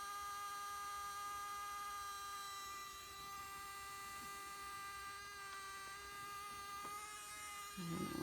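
Sony a6300 mirrorless camera body giving off a steady electronic whining buzz with many overtones after being switched on, an unwanted noise that keeps going while the camera is on. A brief low sound comes in near the end.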